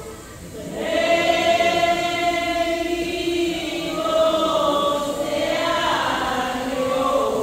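A group of voices singing a slow religious hymn in unison, in long held notes. There is a short break in the first second before the voices come back in together.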